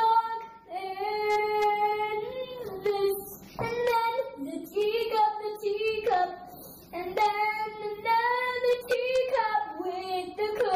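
A young girl singing in a high voice, holding long notes in phrases of a few seconds with short breaks between them.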